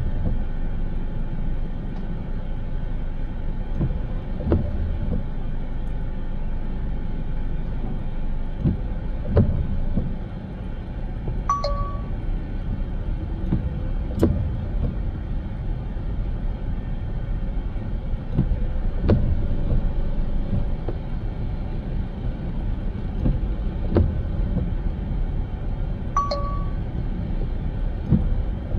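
Steady road and engine rumble from a car being driven, with a sharp knock every few seconds. Twice, a short tone drops in pitch, once about a third of the way in and again near the end.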